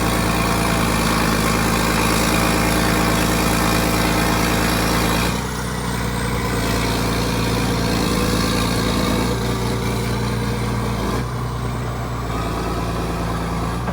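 John Deere 790 excavator's diesel engine running steadily while the machine is worked, its note shifting a few times, about five, nine and eleven seconds in. A faint high whine rises and falls above the engine.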